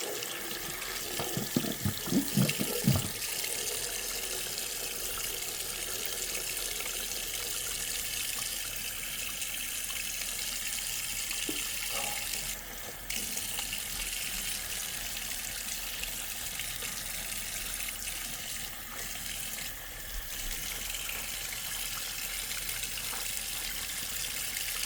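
Tap water running steadily into a sink while a sticky, tape-covered screwdriver is washed under it, with a few short knocks in the first three seconds and a brief break in the flow about thirteen seconds in.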